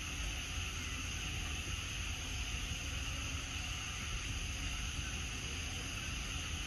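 Steady outdoor background noise: a low rumble under an even high hiss, with no distinct events.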